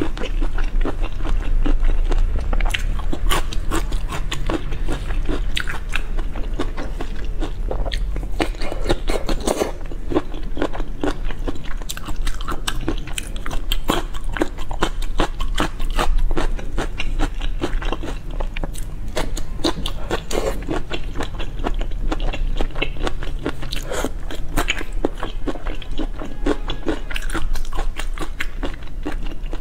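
Close-miked chewing and biting of soy-sauce-marinated shrimp, with many small wet mouth clicks throughout.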